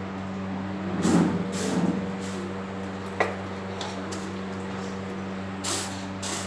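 A steady low hum, with a few short knocks and rustles over it: a sharp click about three seconds in and noisy bursts near the start and end.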